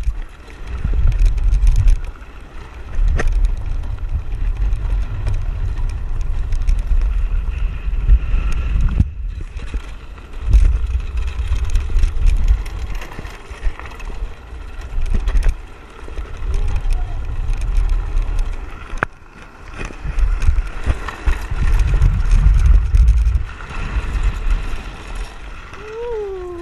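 Wind buffeting the GoPro's microphone on a moving land yacht, in gusts that swell and fade every few seconds, over the rattle and ticking of the cart as it rolls across the sand. A short sliding pitched sound comes near the end.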